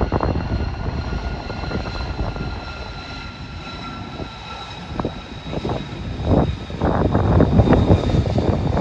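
F-35 Lightning II jet fighter's single turbofan engine running as the jet rolls along the runway, a steady high whine over a low rumble. The rumble grows louder and rougher in the last few seconds.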